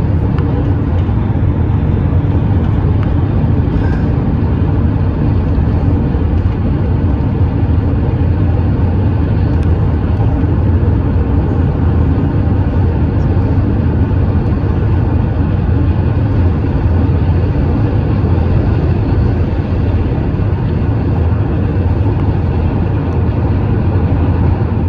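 A car driving, with steady road and engine noise.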